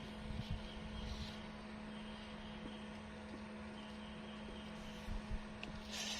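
A steady low motor hum with steady overtones, like an engine running at a distance, with a faint high buzz that comes and goes above it and a short rush of hiss near the end.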